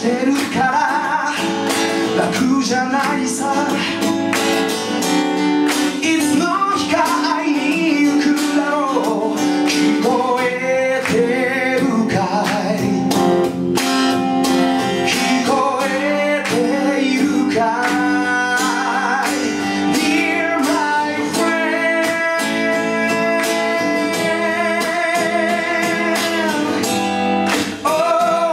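A man singing a ballad while strumming an acoustic guitar. In the second half he holds long notes with vibrato over the steady strumming.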